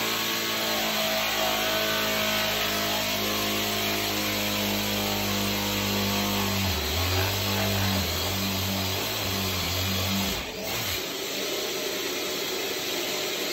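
Festool dust extractor running with a steady hiss while a drill bores into the wall through an extraction hood; the drill's humming note shifts pitch several times from about seven seconds in and stops about ten seconds in, leaving the extractor running.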